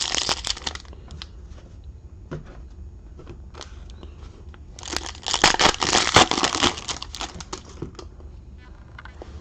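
Plastic wrapping on a pack of trading cards being crinkled and torn open, in two spells: a short one at the start and a longer, louder one about halfway through, with light handling in between.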